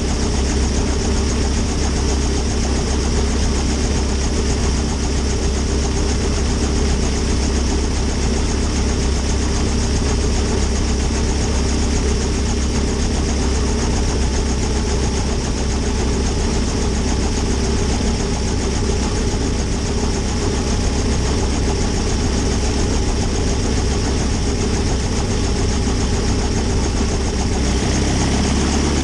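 Small single-seat helicopter running on the ground, its engine at a steady idle while the main rotor turns, giving a constant hum. Near the end the sound starts to shift slightly.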